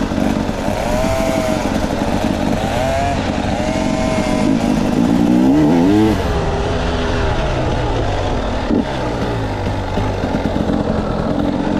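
Dirt bike engines running while riding a trail. The pitch rises and falls with the throttle, and one engine revs up sharply about six seconds in.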